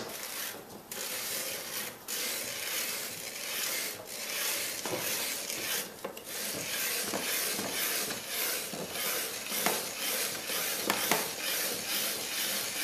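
Vertical hand-turned plastic spiralizer cutting a zucchini into spaghetti strands: a steady scraping, crunching cutting noise with short pauses every second or two as the handle is turned and the squash is pressed through the blade.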